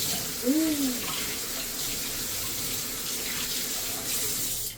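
Kitchen tap running steadily into the sink while fresh mint leaves are rinsed under the stream; the water cuts off right at the end.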